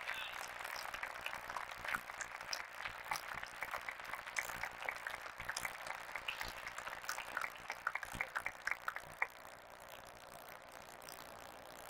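Audience applauding a point, the clapping thinning out and dying away about nine seconds in.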